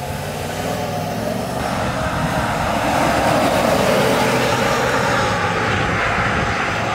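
Stock 2020 GMC Sierra 1500 pickup accelerating hard on a straight run, its engine and tyre noise growing louder over the first few seconds as it passes and pulls away.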